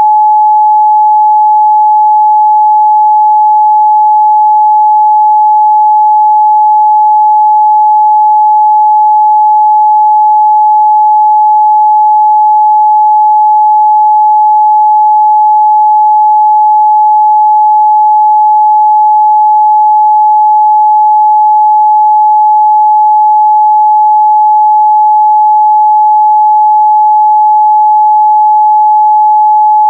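A steady, loud 852 Hz sine-wave test tone, one pure pitch held without change.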